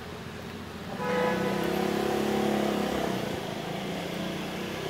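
A motor vehicle's engine running close by on a city street, coming in suddenly about a second in with a steady pitched drone that eases off after a couple of seconds, over general street noise.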